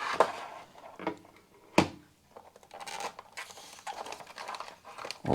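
Unboxing handling noise: packaging and the drive being shuffled about by hand in a small room, with scattered rustles and one sharp knock a little under two seconds in.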